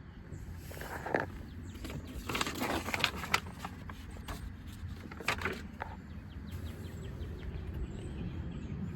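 A few scattered clicks and knocks over a low steady rumble.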